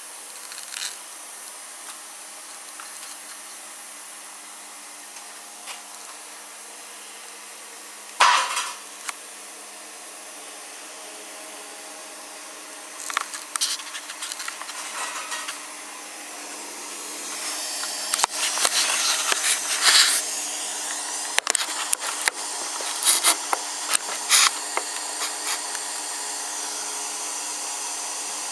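Plasma cutter running with a steady hum, its arc cutting metal in bursts of sharp crackling hiss: briefly about 8 s in, again around 13 s, and longest from about 17 to 25 s.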